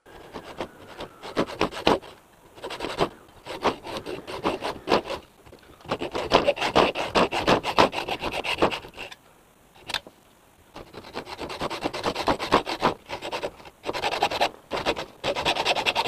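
Hacksaw cutting through a thin aluminium adapter tube. The quick back-and-forth strokes come in several runs with short breaks, the longest pause about nine to eleven seconds in.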